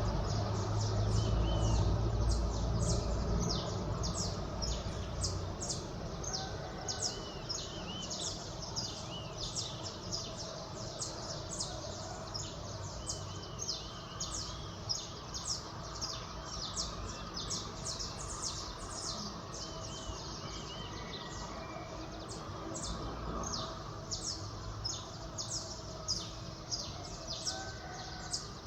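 Dawn chorus of small songbirds: many short, high chirps following one another in quick succession. A low traffic rumble underneath fades away over the first few seconds.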